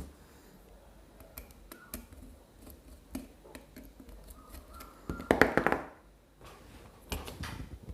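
Light, scattered clicks and taps of hands handling motor wires and a small motor driver board, with a busier patch of handling noise a little after five seconds and again about seven seconds in.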